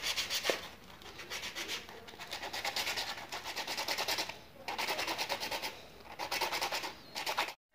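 Fine 220-grit metal-working sandpaper rubbed by hand over a small shad-lure blank carved from a spoon handle. The quick back-and-forth scraping strokes come in runs with short pauses between them.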